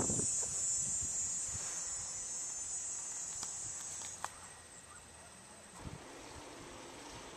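Steady high-pitched buzzing of summer insects, loudest at first and fading over the first few seconds, with a few low thumps at the start and a sharp click about four seconds in.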